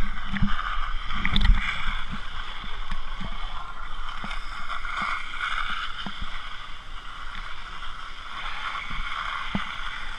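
Pool water sloshing and gurgling around a camera held at the water's surface, with a few dull knocks in the first second or two.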